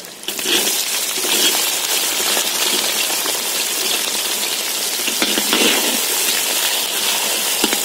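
Chopped onions dropped into hot oil in an iron kadai start sizzling loudly at once, settling into a steady frying hiss as a slotted metal ladle stirs them through the tempering of mustard seeds and dal.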